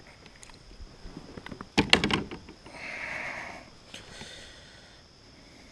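A quick cluster of hard knocks and rattles about two seconds in, from a smallmouth bass being held and shifted on a plastic measuring board in a kayak, followed by a short rustling hiss.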